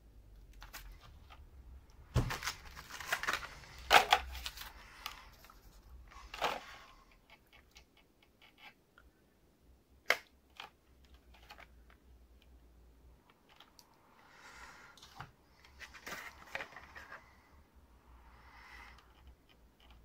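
Hard clear plastic clamshell packaging being worked open by hand to free an M.2 SSD: a run of crackles and clicks a couple of seconds in, a single sharp snap about halfway, then softer rustling near the end.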